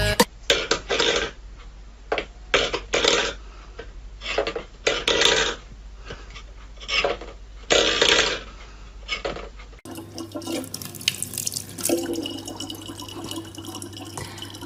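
Steel pet bowls clattering and scraping on a wooden floor in a series of short bursts. About ten seconds in, this gives way to a thin stream of tap water running steadily from a faucet into a plastic bottle.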